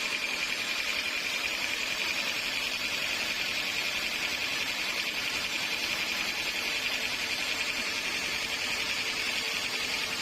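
Sawmill saw cutting steadily through a teak log, a continuous high hiss with no breaks.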